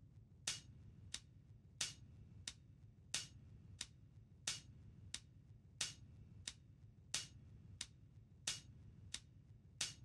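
Faint software metronome clicking at a steady tempo, about three clicks every two seconds, alternating louder and softer clicks, over a low hum.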